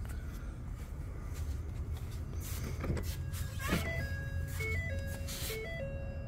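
A low steady rumble, then a click about two-thirds of the way in as the pickup truck's driver door is opened, followed by a simple electronic tune of stepped beeping tones.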